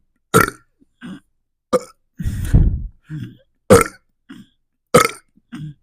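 A person burping over and over in quick succession, roughly one short burp a second. One longer, deeper burp comes about two seconds in.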